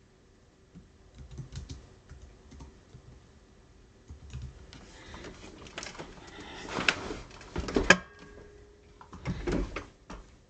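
Typing on a computer keyboard: scattered key clicks, then denser, louder clusters of keystrokes and knocks, with low thumps, in the second half.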